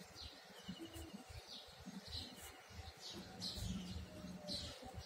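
Small birds chirping faintly in the background: a series of short, falling chirps about once a second, with two brief trills.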